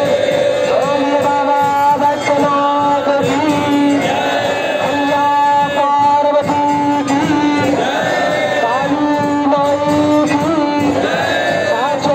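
Hindu devotional aarti music: a voice holding long sung notes with gliding ornaments over instrumental accompaniment.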